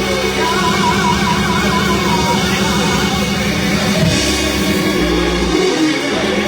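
Live church service music: instruments holding sustained bass notes that shift pitch every second or so, with a wavering melody line over them.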